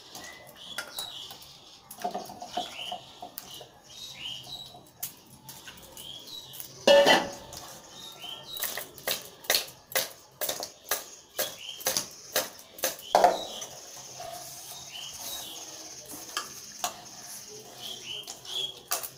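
Steel pots and bowls clinking and knocking as pieces of cut fish are handled and moved between them, with a loud knock about seven seconds in and a quick run of sharp clinks after it. Small birds chirp repeatedly in the background.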